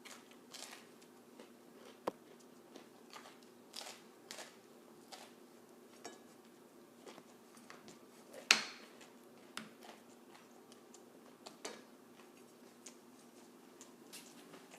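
Person biting and chewing a hard, overcooked pancake: irregular small crunches, with one sharper, louder crunch a little past halfway.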